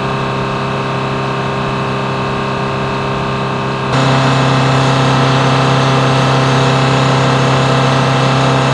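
Steady machine drone of flight-line ground support equipment running, a constant hum with many even tones and no change in pitch. About four seconds in it steps up in loudness with a stronger low hum.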